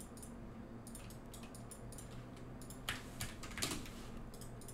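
Faint computer keyboard keystrokes and mouse clicks: a few sharp taps, the loudest about three seconds in and again about half a second later.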